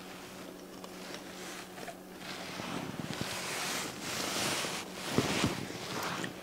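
Kitchen handling noises: a few light knocks and clicks, with bursts of rustling or scraping swelling in the middle and near the end, over a steady low hum.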